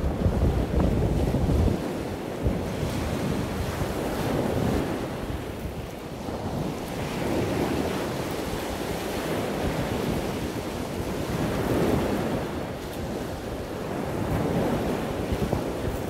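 Ocean surf washing on the beach, swelling and easing every few seconds, with wind buffeting the microphone in a low rumble that is heaviest in the first couple of seconds.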